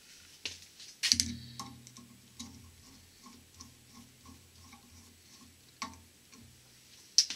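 Light metal tool work on a screw in a Delco-Remy starter's center support plate: a sharp clack, then a steady run of light ticks about two to three a second, with two sharp clicks near the end.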